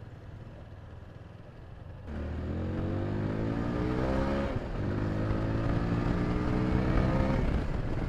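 TVS Apache RTR 160 4V's single-cylinder engine accelerating hard, its pitch climbing and dropping back at two upshifts, about halfway and near the end. A quieter low rumble for the first two seconds.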